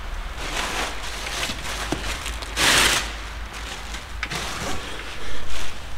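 Rustling and clattering of packaging as earth auger drill bits are handled and taken out of their box, with a few light knocks; the loudest rustle comes a little before halfway.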